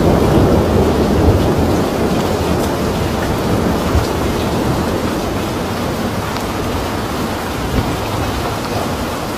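Heavy downpour: a loud, steady rush of rain with a deep rumble beneath it, easing slightly toward the end.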